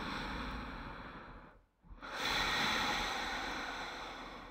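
A person's breathing: two long, drawn breaths of about three seconds each, the second fading out near the end.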